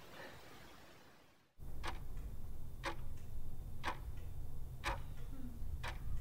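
Clock ticking once a second over a low hum: five sharp ticks. It starts suddenly about a second and a half in and cuts off abruptly at the end, as an edited-in ticking-clock sound effect marking a thinking pause.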